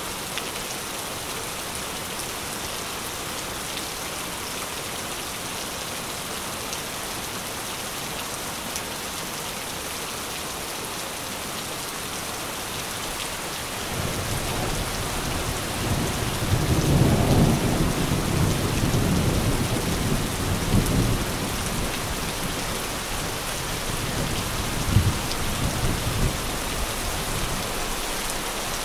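Thunderstorm: steady rain falling throughout. About halfway through a long roll of thunder builds, loudest a few seconds later, and a shorter rumble follows near the end.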